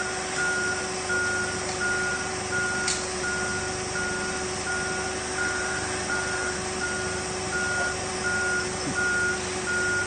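Forklift's reversing alarm beeping steadily, about three beeps every two seconds, over a steady hum.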